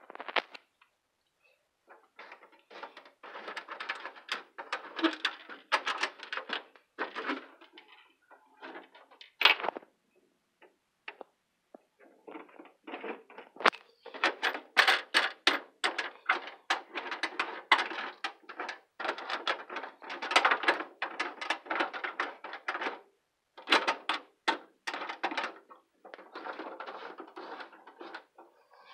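Handling noise close to the microphone: rapid clicking, rattling and rubbing in long bursts, with quiet gaps about a second in and between about 8 and 12 seconds in.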